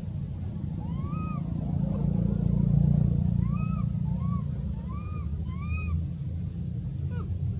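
A string of about five short, arched, whistle-like macaque coos, each rising then falling in pitch, between about one and six seconds in, with a brief falling call near the end. Under them runs a steady low rumble that swells about three seconds in.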